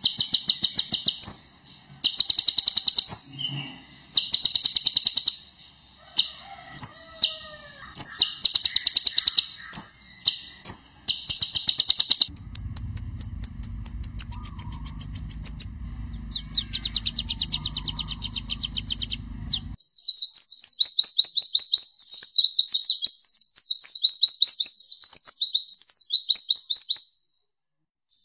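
Kolibri ninja (purple-throated sunbird) singing: loud, rapid high trills in repeated phrases, turning into fast, up-and-down chattering in the second half, with a low hum underneath in the middle part. The song breaks off briefly near the end.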